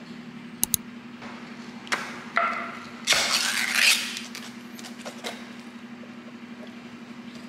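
A Spam can's metal pull-tab lid being opened. A couple of sharp clicks and a tap come first, then about three seconds in a second-long tearing scrape as the lid is peeled back, and a knock near five seconds as the can is turned over onto a cutting board. A faint steady hum runs underneath.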